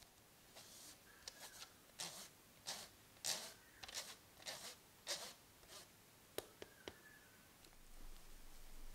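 Plastic mesh sieve being shaken to sift flour and cocoa powder: a run of soft swishes, about two a second, then two sharp light clicks about two-thirds of the way through.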